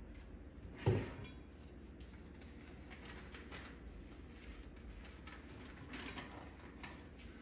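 A single sharp clink or knock about a second in, like a hard object set down, followed by faint small handling sounds.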